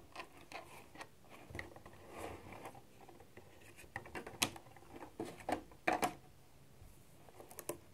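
Clear plastic clamshell packaging being handled and opened: scattered clicks and crinkles of stiff plastic, the sharpest about four and a half and six seconds in.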